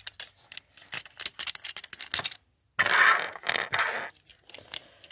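Plastic Transformers toy being handled and transformed by hand: a run of small plastic clicks and rattles as parts are moved, with a louder stretch of clattering handling noise about three seconds in.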